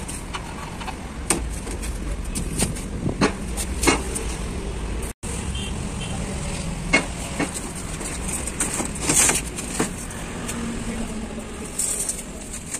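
Workshop noise: a steady low hum with scattered sharp clicks and knocks, and a brief dropout about five seconds in.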